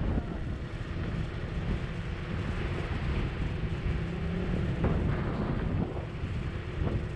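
Steady, fluttering low rumble with wind buffeting the microphone.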